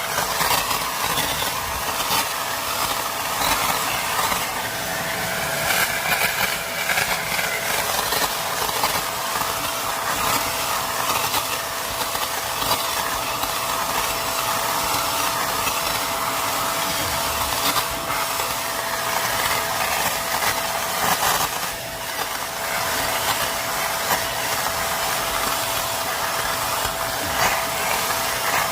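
Shark vacuum cleaner running steadily, its motor giving a constant whine over the rush of suction, with a brief dip about three quarters of the way through.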